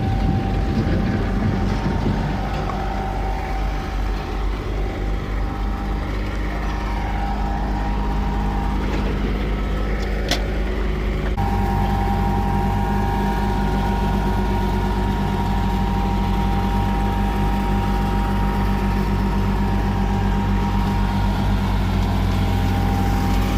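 Heavy equipment engine running steadily, with a steady low hum and a constant higher tone. A sharp click comes about ten seconds in, and just after it the engine note turns fuller and steadier.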